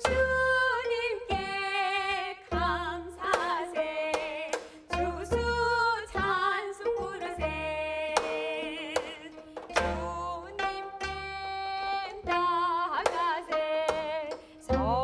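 Gayageum (Korean plucked zither) ensemble accompanying women singing a Korean hymn with vibrato, plucked notes sounding throughout. A deep drum, a Korean buk, strikes every two to three seconds under the music.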